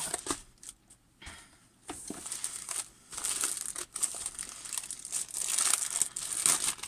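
Plastic packaging crinkling as a diamond painting canvas is unwrapped, in irregular rustles that become busier after about two seconds.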